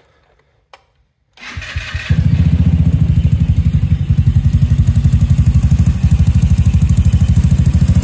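GY6 150cc four-stroke single-cylinder go-kart engine being electric-started off a jump-starter battery pack. There is a click about a second in, a brief crank, and then the engine catches about two seconds in and runs steadily with rapid, even firing pulses.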